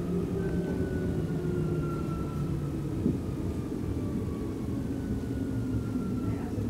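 Electric commuter train heard from inside the carriage, its traction motors whining with a slowly falling pitch as it brakes into a station, over a steady rumble of wheels on rail. A single knock about three seconds in.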